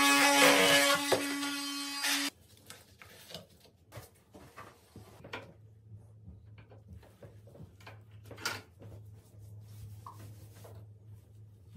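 Cordless oscillating multi-tool running at a steady pitch as its blade cuts through a white PVC drain pipe, stopping suddenly about two seconds in. Then faint scattered clicks and taps as the plastic fittings are handled at the wall.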